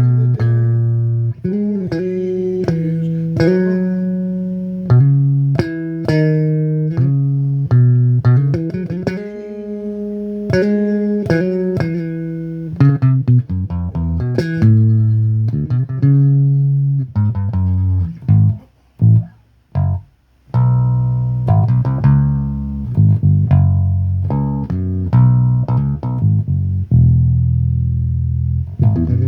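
Bass guitar played solo: a melodic line of single plucked notes, each ringing and fading. About two-thirds of the way through come a few short clipped notes with brief gaps, then the line resumes.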